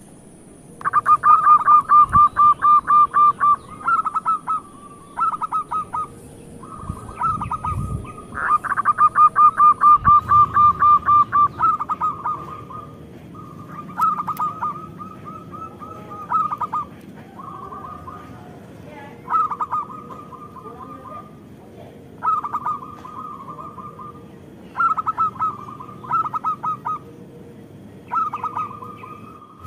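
Zebra dove (Indonesian local perkutut) cooing: rapid staccato trilled coos, with two long rolls in the first half and shorter bursts every two or three seconds after.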